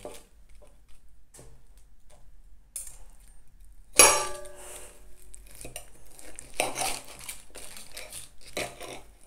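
Knife and fork scraping and clinking on a plate while cutting a cooked chicken drumstick. One loud ringing clink comes about four seconds in.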